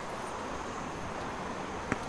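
Steady city street traffic noise, with one sharp click near the end.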